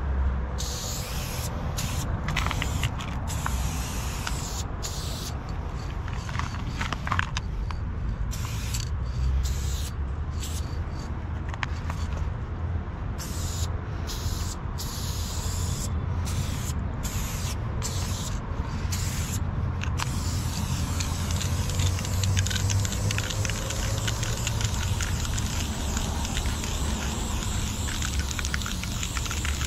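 Aerosol spray paint can hissing as graffiti is sprayed: many short bursts with brief breaks between them, then longer unbroken spraying over the last third, over a steady low rumble.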